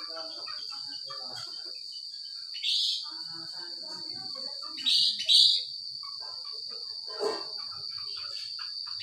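Sooty-headed bulbul (kutilang) calling in short, loud, upward-sweeping notes, four times, two of them in quick succession near the middle. Beneath it runs a continuous high-pitched insect drone.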